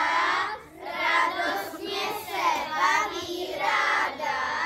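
A group of children singing together in short phrases, stopping near the end.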